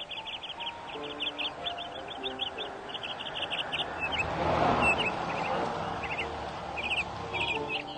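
Small birds chirping in quick runs of short high notes over soft background music with held notes. About halfway through a swell of noise rises and fades.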